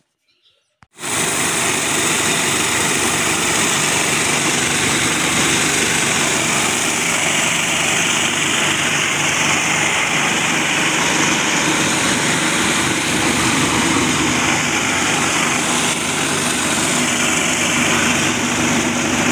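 Tractor engine running steadily under load, driving a belt-driven stone flour mill (atta chakki). The sound starts abruptly about a second in and then holds at an even level.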